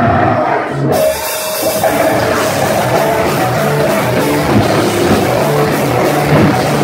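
Heavy metal band playing live: loud distorted guitars, bass and drum kit, with the cymbals and full band crashing in about a second in.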